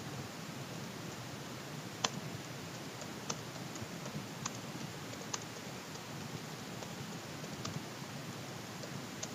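Typing on a computer keyboard: scattered keystroke clicks at an uneven pace, a handful standing out louder than the rest, over a steady hiss.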